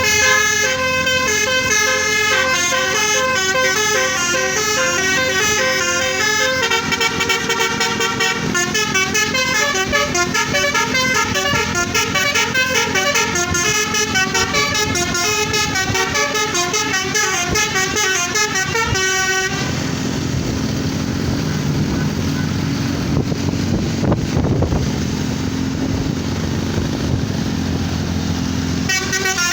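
A bus's multi-tone telolet horn plays a fast melody of short, changing notes. About two-thirds of the way through it cuts off abruptly, leaving low vehicle engine and road noise, and the horn starts up again right at the end.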